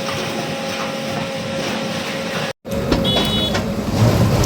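Bulldozer engine running steadily. The sound cuts out for an instant about two and a half seconds in and comes back louder and deeper.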